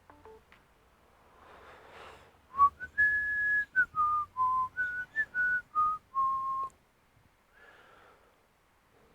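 A person whistling a short tune of about ten notes that step up and down in pitch for about four seconds, starting between two and three seconds in.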